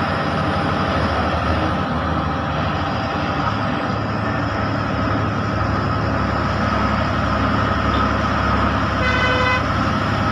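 A bus engine running steadily, heard from inside the cabin, over a steady hiss from tyres on the wet road and rain. Near the end a vehicle horn toots once for about half a second.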